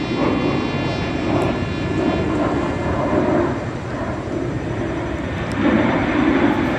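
Airplane engine noise: a steady rumble with a thin, steady high whine over it.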